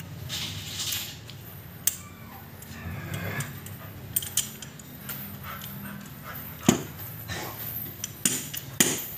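Metal clinks and knocks of a Mazda Bongo 4x4 manual transmission's mainshaft gears and synchro rings being turned and shifted by hand on the shaft, with sharp clicks about 2, 7, 8 and 9 seconds in.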